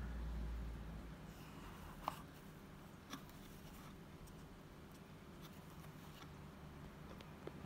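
Faint handling of a glass dip pen being set back into its foam-lined box: a dull rustle at first, then a few light clicks and taps, the sharpest about two seconds in.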